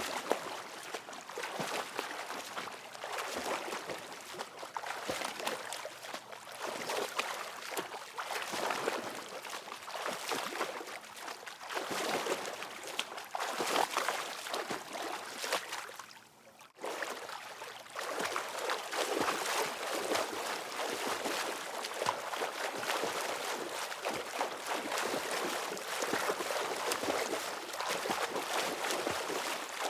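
Water being splashed continuously, many irregular overlapping splashes and sloshes. There is a short lull just past halfway before the splashing resumes at full level.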